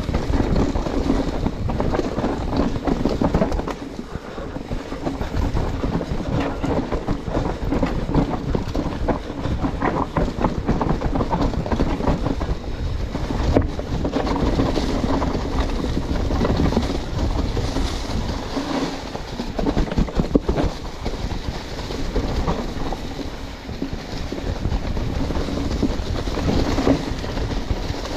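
Mountain bike riding a dirt trail: tyres rolling and the bike rattling over rough ground, with wind buffeting the microphone in uneven gusts.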